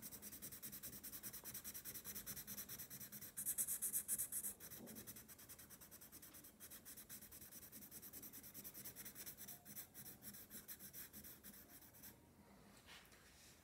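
A colourless blender pencil is rubbed in quick, repeated strokes over coloured-pencil pigment on drawing paper, a faint scratchy rubbing that works the pigment into the paper. The strokes are loudest about three and a half to four and a half seconds in and die away about twelve seconds in.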